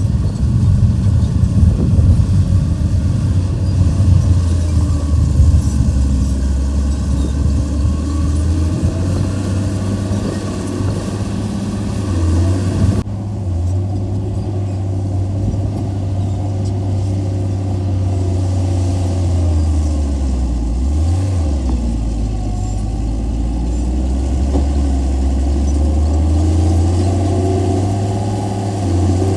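Heavy earthmoving machine's diesel engine running steadily with a deep drone, its revs shifting with load. The engine dips and rises in pitch about two-thirds of the way through. The sound changes abruptly a little under halfway through, where the recording cuts.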